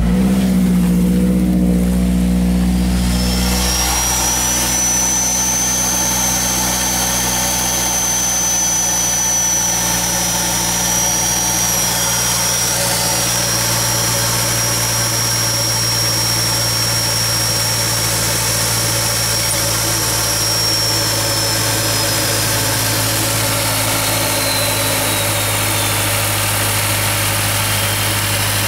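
Mazdaspeed 2.3-litre turbocharged four-cylinder engine starting from cold after a new Garrett GTX2867R turbo install, running at a raised idle for about three seconds and then settling into a steady idle. A thin high whistle comes in after a few seconds, holds, and fades away falling in pitch near the end.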